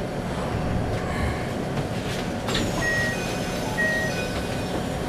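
Steady hum and station ambience inside a stopped commuter train standing at a platform with its doors open. From about halfway in, a few short high electronic tones sound.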